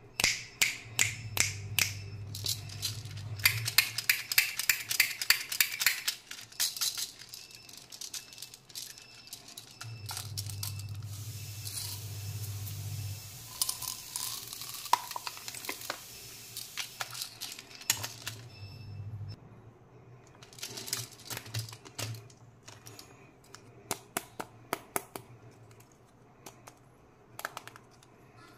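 Plastic candy toys and small round candies handled by hand, clicking and rattling in quick runs, with a stretch of hiss in the middle.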